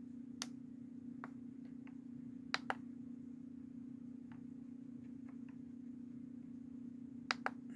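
Scattered small button clicks over a faint steady hum, with two sharp double clicks, one about two and a half seconds in and one near the end.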